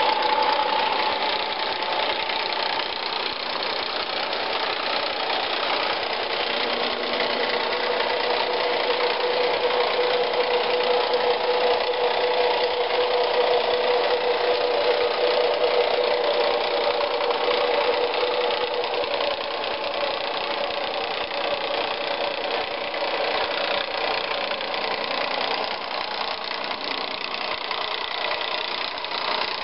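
Model train running on three-rail track: the steady whine of its electric motor over the rolling rumble of the wheels, the whine strongest in the middle.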